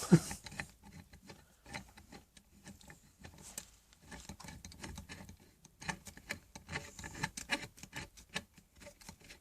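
Light, irregular clicks and small knocks of a metal drill press vice being handled and turned over on the bench.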